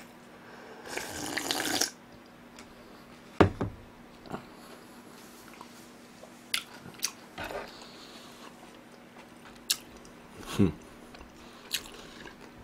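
Slurping cold soba dipping broth from a glass bowl about a second in, then a sharp clack as the bowl is set down on the wooden table. After that come quiet chewing and a few small clicks.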